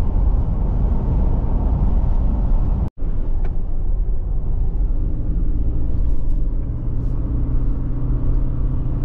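A car on the road: a steady low rumble of engine and tyres, broken by a split-second gap about three seconds in, after which a steadier engine hum comes through.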